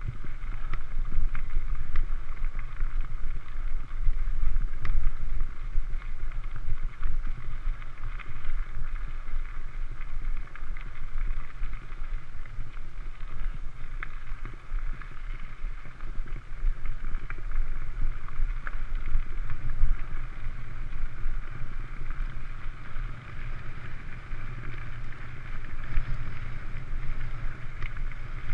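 Mountain bike rolling fast over a gravel track: steady tyre noise with scattered small ticks and clicks from stones, and wind rumbling on the handlebar-mounted microphone.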